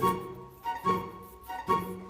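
Background music: pitched instrumental notes entering at a steady pace, about one every 0.8 seconds.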